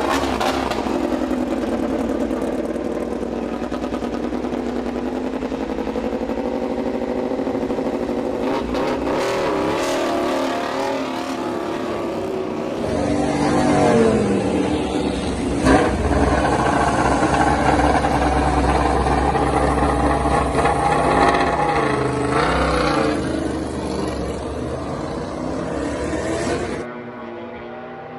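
Honda RC213V MotoGP bike's V4 racing engine at high revs, its pitch climbing and falling as it accelerates and shifts. The sound changes abruptly about halfway through and again near the end, where one clip cuts to the next.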